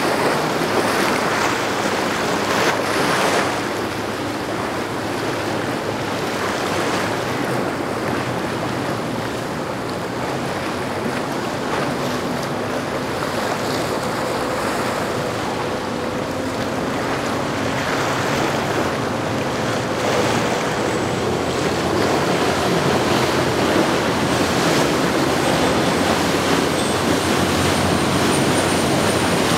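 Waves and boat wake washing, with wind buffeting the microphone and the steady drone of a Cabo Express sportfishing boat's engines underneath. It grows a little louder over the last several seconds.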